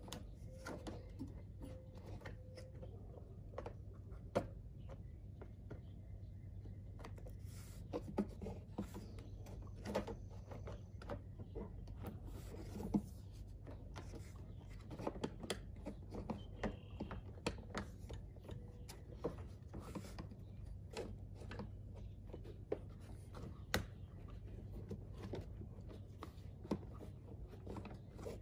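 Hard plastic windshield cowl panel being handled and pressed into place on a car: scattered, irregular clicks, taps and rubbing of plastic parts, with a few sharper snaps, over a steady low hum.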